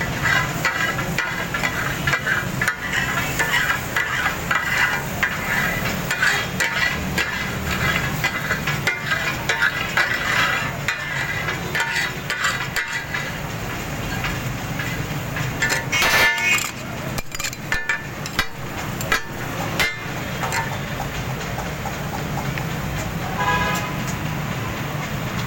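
Steel spatulas chopping and clanging on a hot iron tawa griddle in the rapid, irregular taka tak rhythm, with food sizzling and a steady low rumble of street traffic underneath.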